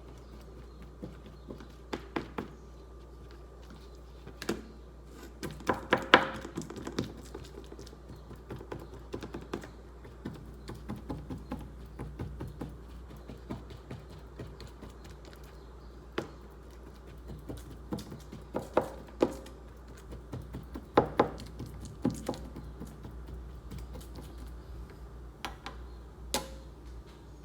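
A fork stabbing into a raw steak, its tines clicking and tapping against the surface underneath in irregular clusters, the loudest strikes about six and twenty-one seconds in.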